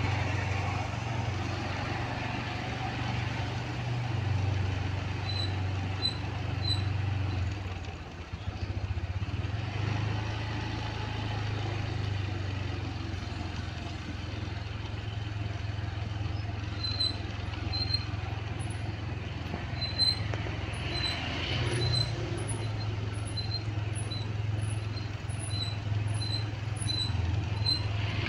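Motorcycle engine running steadily at low riding speed, easing off briefly about eight seconds in. Short, evenly spaced high beeps come in twice, briefly a few seconds in and again through the second half.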